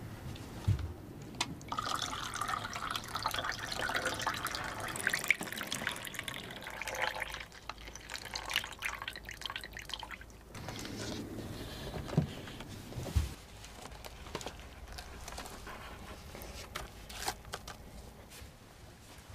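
Spilled coffee pouring and dripping out of a tipped-over laptop into a paper cup, with a few sharp knocks and clicks from handling the laptop.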